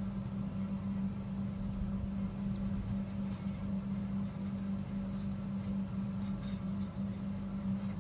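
A steady low hum, with a few faint, light clicks of metal knitting needles being worked.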